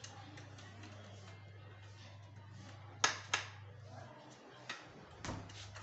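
Two sharp thuds about three seconds in, a person's feet landing after dropping from a hang, followed by a couple of softer steps, over a steady low hum.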